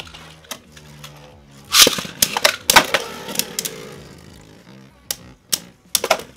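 Two Beyblade Burst tops, Strike Valtryek V3 and Luinor L3, spinning in a plastic stadium. They clack sharply against each other and the stadium walls, in a dense run of hits about two seconds in. Between hits there is a steady whirring hiss that fades, then a few separate sharp clacks near the end.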